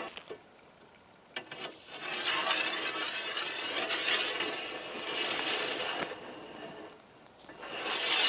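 Rapid mechanical clicking and rasping, starting about two seconds in and easing off after about six seconds, then building again near the end.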